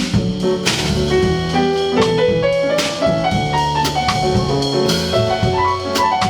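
Instrumental jazz-style music: piano over a drum kit, with rising runs of notes.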